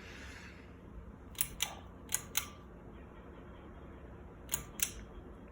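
Three pairs of sharp clicks, each pair about a quarter second apart: the ceiling fan's pull-chain speed switch being pulled and let go, changing the Mainstays hugger fan's speed. A faint steady hum from the fan runs underneath.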